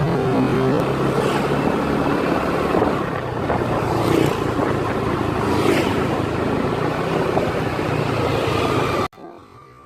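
Loud, steady vehicle noise with a low rumble and a few brief swells, cut off abruptly about nine seconds in.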